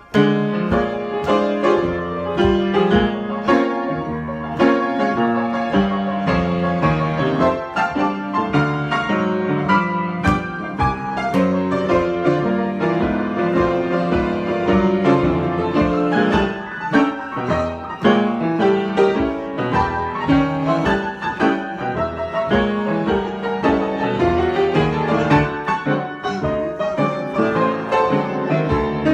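Piano improvisation: a continuous, busy stream of notes and chords with no pause.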